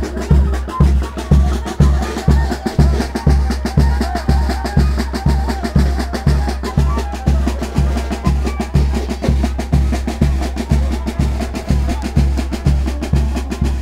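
Live brass band with drums playing dance music: a bass drum beats about twice a second under brass and hand percussion (congas and timbales).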